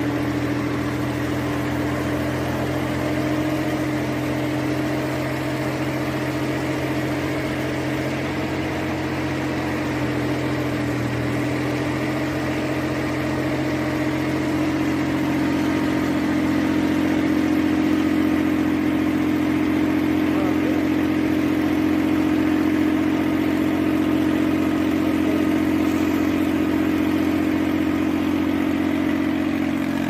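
Tractor engine running steadily, powering a rear-mounted air-blast blower sprayer as it throws spray mist. The steady drone grows a little louder about halfway through.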